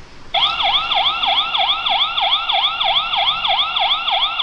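Anpviz security camera's built-in alarm speaker sounding its electronic siren, triggered by hand from the app: a loud yelp of quickly repeated rising sweeps, about four a second, starting a moment in.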